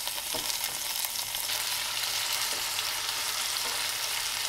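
Chicken pieces and sliced onions sizzling in hot olive oil in a stainless steel sauté pan: a steady frying hiss that grows a little louder about a second and a half in, with a few light knocks of a wooden spatula against the pan.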